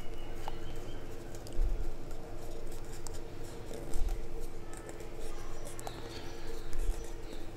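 Hands handling paper: faint rustling as a glued paper strip is rolled around a paper-straw umbrella stick, with a few soft bumps, over a steady hum.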